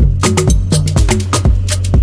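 Upbeat background music with a steady percussive beat over a continuous bass line.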